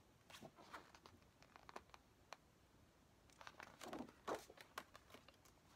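Faint rustling and small ticks of paper being handled, album posters and printed inserts shifted about, with a few short crinkles about three to four and a half seconds in.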